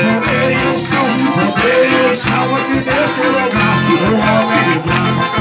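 Upbeat Pentecostal chorus music: a band playing with a steady, driving beat.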